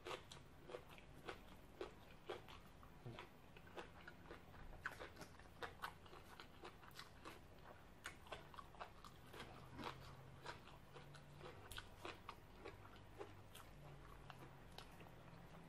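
Close-up chewing and crunching of crunchy green papaya salad: irregular crisp crunches and wet mouth clicks, a few a second.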